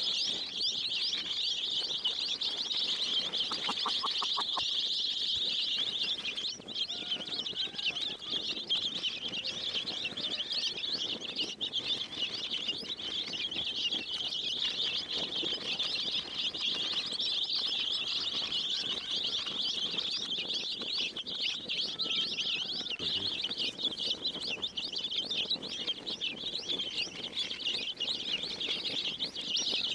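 A flock of baby chicks peeping without pause, many high, rapid cheeps overlapping into a dense chorus.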